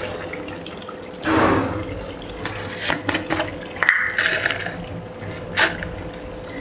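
Chicken pieces simmering in thick masala and ghee in a non-stick wok over low heat with no water added, bubbling and sizzling with irregular small pops. A brief louder rush comes about a second in.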